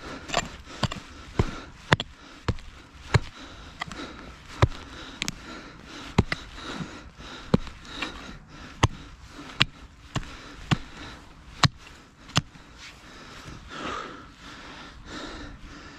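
A hand digging tool striking hard, stony ground in a series of sharp blows, roughly two a second and a little uneven, which stop about twelve seconds in.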